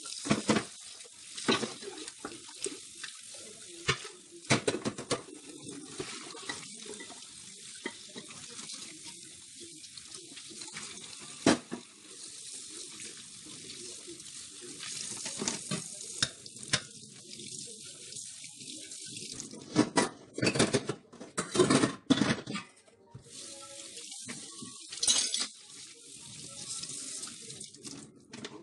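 Water running from a kitchen tap into a stainless-steel sink as washed pans and a plastic bowl are rinsed under it, with clatters of metal cookware knocking against the sink and each other. The loudest clanks come in a cluster about twenty seconds in.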